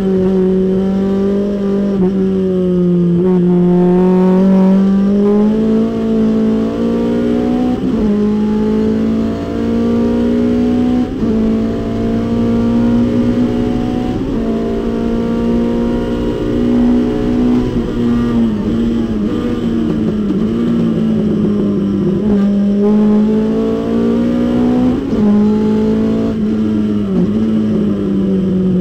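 Datsun 510 race car's four-cylinder engine at racing speed, heard from inside the stripped cabin. The pitch climbs steadily for several seconds and holds high, then dips briefly a few times as the car slows for corners toward the end.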